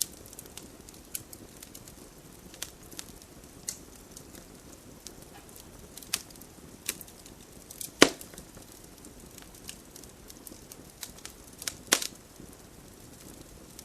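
Campfire burning: a low steady hiss with scattered sharp crackles and pops from the burning wood, the loudest pop about eight seconds in and another near the end.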